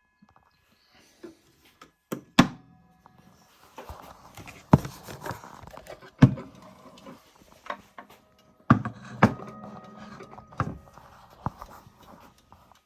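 Mantel clock being handled and moved about: a series of irregular knocks and clunks, several followed by a brief ringing tone.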